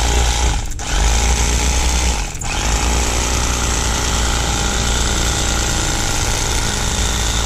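Electric fillet knife running steadily as it cuts into an alligator gar behind the head, its motor hum dipping briefly twice in the first two and a half seconds.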